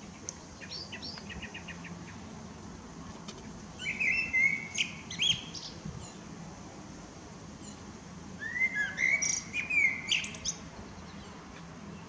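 Common blackbird singing two short song phrases, about four and nine seconds in, each starting lower and breaking into higher twittering notes, with a short run of faint ticking calls near the start.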